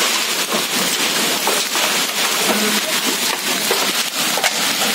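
Heavy rain with hail pelting a concrete courtyard: a steady hiss thick with sharp ticks of hailstones striking the ground.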